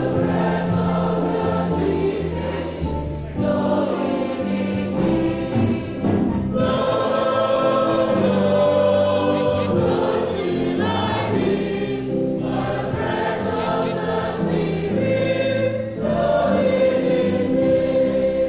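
A choir singing a hymn in phrases, with short breaks between them every few seconds.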